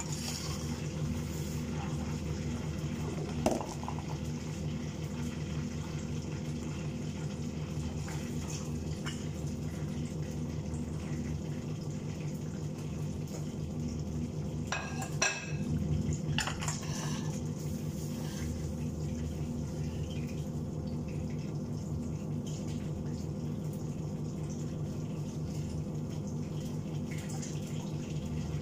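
Chicken frying in oil in a pan over a steady low hum of the kitchen extractor hood's fan, with a sharp knock about three and a half seconds in and a short burst of metal ladle and plate clatter about halfway through.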